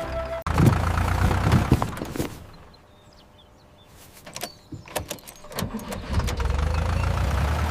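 Tractor engine: a loud burst of engine noise that fades out after about two seconds, a few sharp clicks, then the engine starting up again and running steadily.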